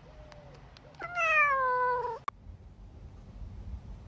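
A cat meows once: a single drawn-out meow lasting about a second that falls slightly in pitch, followed by a short click.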